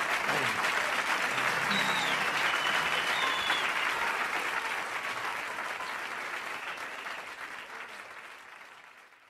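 Audience applauding, with a couple of short whistles about two to three seconds in, fading out near the end.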